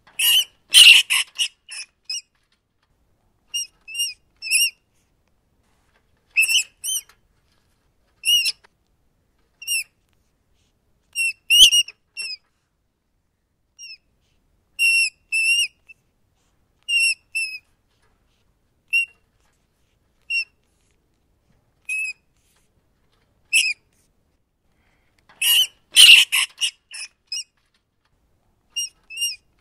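Rats squeaking: short, high-pitched squeaks in scattered pairs and triplets, with two quick flurries of many squeaks, one near the start and one near the end.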